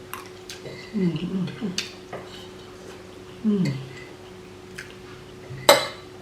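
Spoons clinking against plates during a meal: a handful of separate sharp clinks, the loudest near the end.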